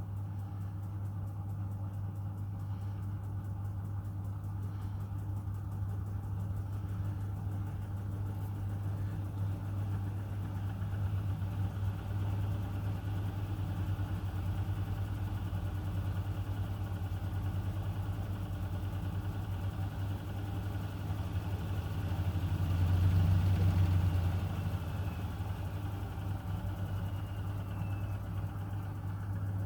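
Miele washing machine running with a steady low hum, swelling louder for a couple of seconds about two-thirds of the way through.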